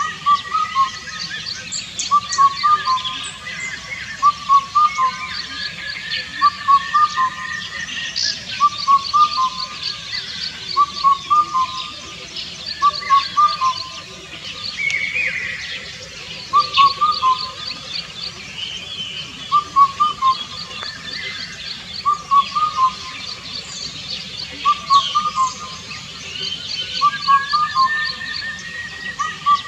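Indian cuckoo singing its four-note call over and over, about once every two seconds, with other birds whistling and chirping higher in the background.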